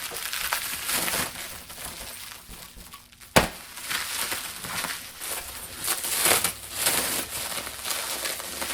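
Packing wrap being crinkled and pulled away by hand while unwrapping a drum, an irregular rustling and crackling with one sharp click a little over three seconds in.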